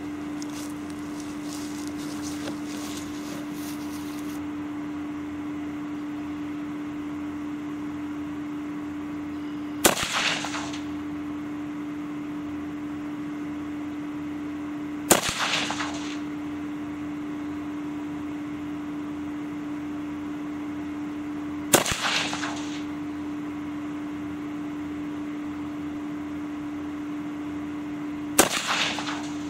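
Four single rifle shots from a Ruger AR-556 semi-automatic in .223 Remington, spaced about five to seven seconds apart, each trailing off briefly. A steady hum runs underneath.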